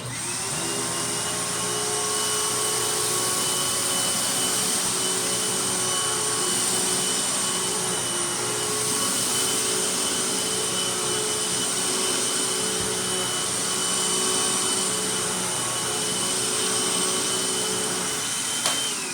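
Hoover WindTunnel Max upright vacuum cleaner switched on and running at a steady, loud whine for about nineteen seconds, then switched off with a click near the end, its motor winding down in falling pitch.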